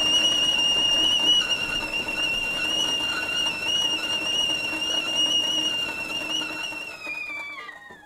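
Stovetop kettle whistling: one steady high-pitched tone over a hiss. Near the end the pitch slides down and the whistle fades out.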